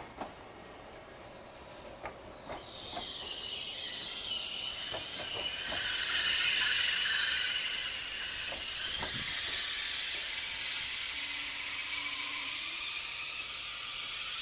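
SNCF regional TER multiple unit running past on the station track. Its wheels click over the rail joints in the first few seconds, then a high hiss and whine rise to a peak around the middle and slowly fade as it draws away.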